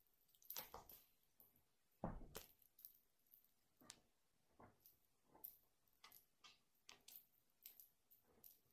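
A cat pouncing and scrambling after a wand toy on a wooden floor: a series of soft taps and thuds, the loudest a low thump about two seconds in, with light high clicks from the toy.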